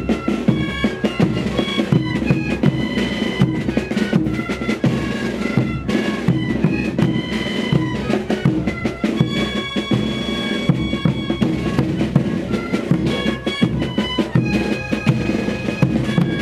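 Tarka ensemble playing tarqueada dance music: many wooden Andean duct flutes sounding a reedy melody together, with drums beating along.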